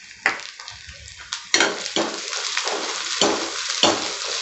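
Chopped onions sizzling in hot oil in a kadai, stirred with a steel spatula that scrapes the pan in repeated strokes. The sizzle grows much louder about a second and a half in.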